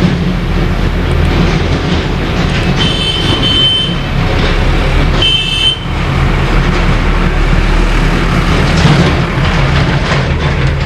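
Loud, steady vehicle rumble with a low hum, broken by two brief high tones about three and five and a half seconds in.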